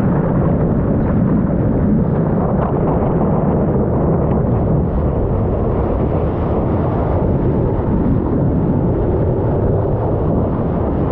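Steady low rush of breaking whitewater and water running along a stand-up paddleboard, picked up by a camera mounted on the board, with wind buffeting its microphone.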